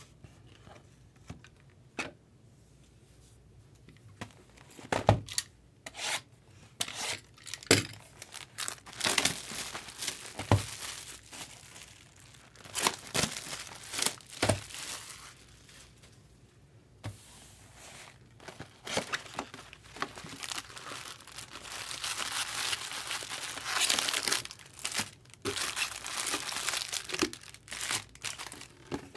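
Wrapping on Bowman Jumbo baseball-card boxes and packs being torn and crinkled as they are opened, in bouts of rustling, with scattered sharp knocks and taps from the boxes being handled.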